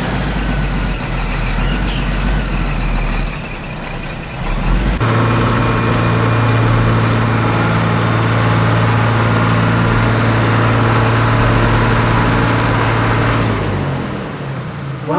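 Truck engine running: a rough low rumble for the first few seconds, then a steady, even drone that fades near the end.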